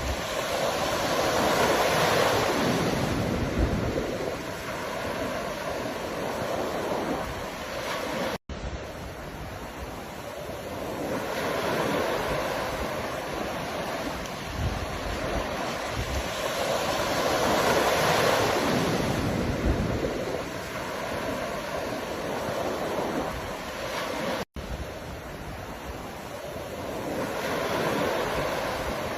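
Ocean surf washing in and drawing back, each wave swelling to a peak and fading over several seconds, with wind buffeting the microphone. The sound drops out for an instant twice.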